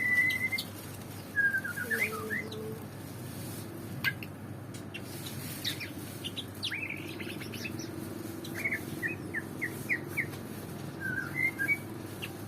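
White-rumped shama (murai batu) singing: short whistled notes and quick chirps in scattered clusters, with pauses of a second or more between phrases.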